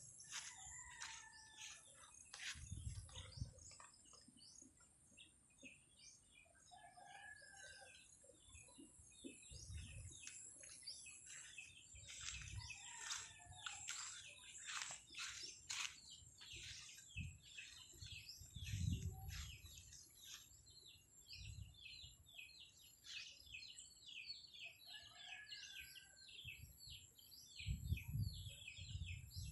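Many small birds chirping constantly in quick, overlapping high notes, with a few lower short calls mixed in. Low rumbles come now and then, strongest near the end.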